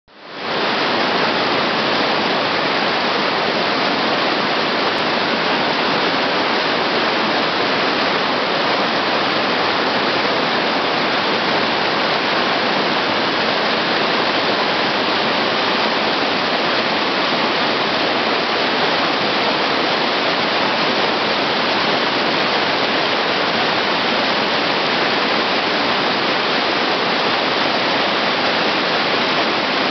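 Mountain stream rushing over rocks and small cascades: a loud, steady rush of water that fades in at the start and does not change.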